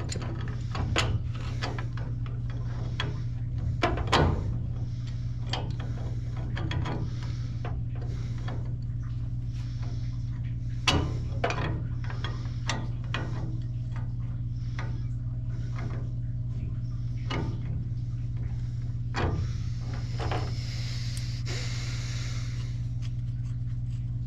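Pipe wrenches clicking and clanking against black iron gas pipe and fittings as the jaws are set, rocked and slip, a cheap wrench that has no grip. The sharp metal knocks come irregularly, with a short hiss near the end, over a steady low hum.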